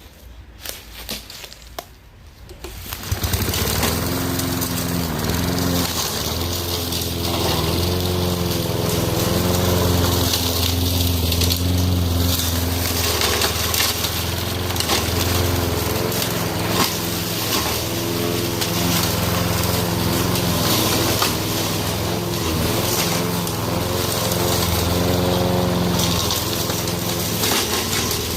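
Powerful lawn mower fitted with a chopping blade, mulching tree branches: its engine comes in loud about three seconds in and runs on, the note repeatedly dipping and recovering as it works through the branches.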